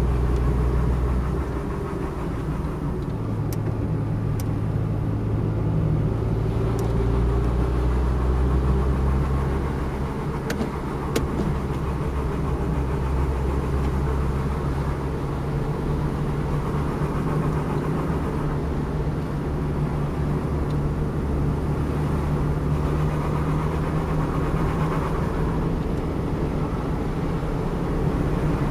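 Car engine and tyre noise heard from inside the cabin while driving. The engine hum shifts in pitch a few times as speed changes, with a few faint ticks early in the drive.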